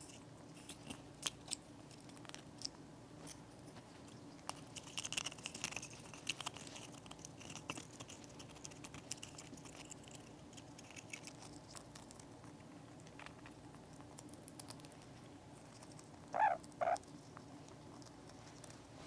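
Amazon parrot cracking and chewing a walnut with its beak: scattered small clicks and crunches, thickest about five seconds in. Near the end come two short chirps.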